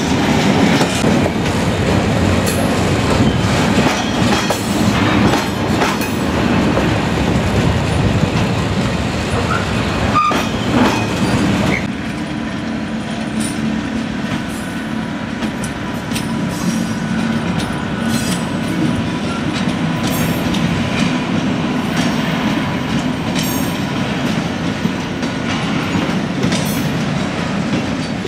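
Freight train rolling past at close range, its wheels clattering over rail joints in a dense run of knocks. About twelve seconds in the sound cuts to a slightly quieter pass of a MÁV class V43 (431) electric locomotive and its freight wagons, with a faint steady whine above the wheel noise.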